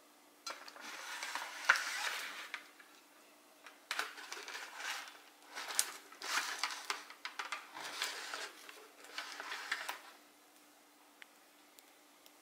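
Handling noise from a potted peperomia being moved by hand: irregular rustling with sharp clicks in several spells of about a second each, stopping about ten seconds in.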